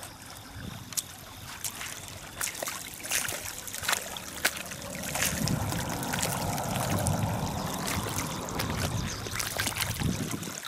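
Shallow river water running and lapping around a wading angler, with scattered short clicks, getting louder about halfway through.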